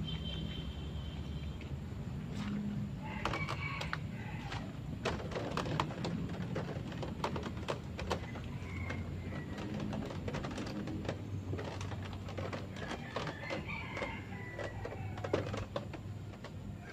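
Roosters crowing and other birds calling a few times, over a steady low hum and scattered light clicks and knocks from a motorcycle being wiped down by hand.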